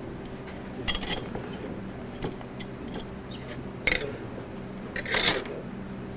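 Steel arm parts of a DeWalt DW788 scroll saw clicking and knocking against each other and the table as they are handled and fitted together during reassembly: a few separate metal clicks, a sharper knock about four seconds in, and a short clatter about five seconds in.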